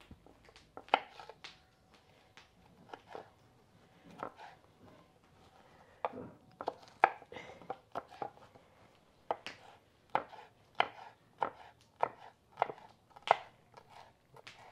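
Kitchen knife chopping serrano chiles on a wooden cutting board, each cut a sharp knock on the board. The cuts are sparse and uneven at first, then settle into a steadier chop of about two a second past the halfway point.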